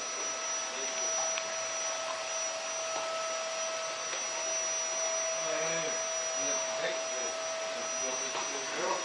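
Vacuum cleaner running steadily: a constant motor whine over a steady rushing hiss.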